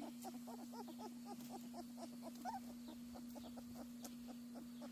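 A litter of young puppies whimpering and squeaking, many short high calls overlapping several times a second, over a steady low hum.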